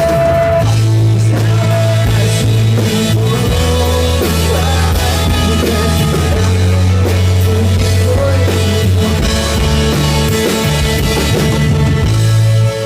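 Live rock band playing loudly with drums and steady bass notes that change every second or two, and some singing; the music drops in level just before the end.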